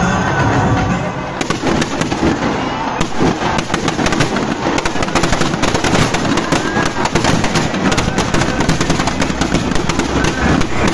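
Firecrackers packed in a burning Ravana effigy going off in a dense, continuous crackle of rapid bangs that sets in about a second and a half in.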